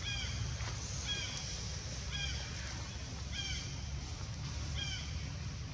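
An animal calling: five short calls, each falling slightly in pitch, repeated about once a second over a steady low rumble.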